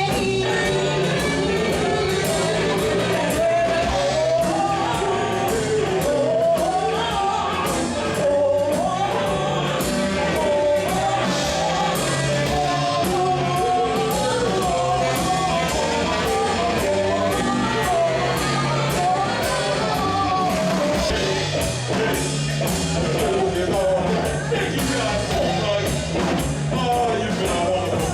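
Live rock-and-roll band playing with a singer, over a steady beat.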